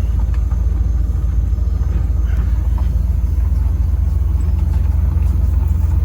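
Farm tractor engine running steadily with a deep, even rumble as the tractor drives along.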